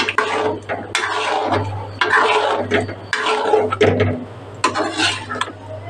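Metal spatula stirring thick, creamy chicken curry in a metal karahi, scraping and knocking against the pan in irregular strokes about once a second.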